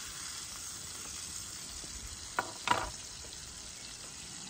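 Flat iron steaks frying in hot bacon grease in an 8-inch steel skillet on a propane camp stove: a steady sizzle. About halfway through, a brief click and a short voice sound cut in.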